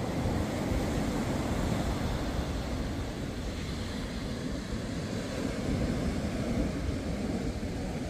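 Steady low rumble of wind buffeting a phone's microphone, with a faint hiss above it.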